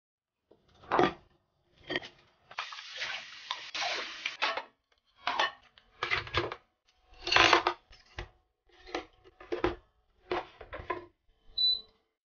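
Clatter of dishes and wooden chopsticks and spoons being handled and dropped into a utensil sterilizer holder, in a string of short knocks with a two-second stretch of rushing noise early in the sequence. A short electronic beep sounds near the end.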